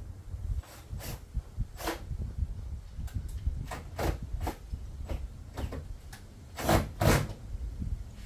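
Small screws being driven into plastic trim with a drill-driver set low on its clutch so as not to strip the plastic, amid scattered clicks and knocks of handling. The loudest sounds are two sharp knocks close together about seven seconds in.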